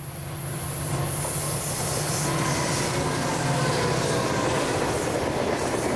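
Several diesel-electric locomotives at the head of a freight train run past close by. There is a steady low engine drone over the rumble and rattle of wheels on rail, and it swells over the first second as the units draw near.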